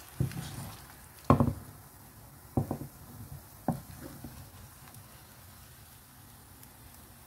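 A wooden spatula stirring thick agidi (corn-starch pap) in a stainless steel pot, knocking sharply against the pot about five times in the first four seconds.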